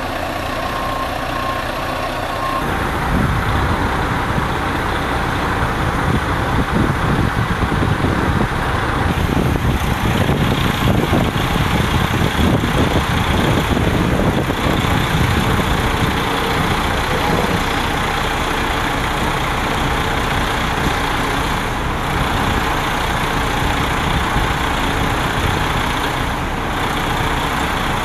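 Motor vehicle engines running steadily, a dense rumbling noise that gets louder about three seconds in.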